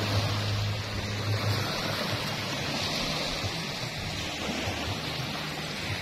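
Small waves breaking and washing up a sandy beach: a steady wash of surf, with a low hum under it for the first second and a half.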